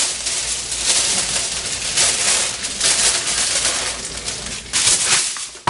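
Aluminium foil crinkling and rustling as it is pulled over and pressed around a roasting pan, in uneven surges.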